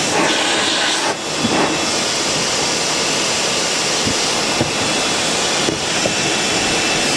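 Titan garage vacuum cleaner running in reverse as a blower: a steady rush of air with a thin motor whine.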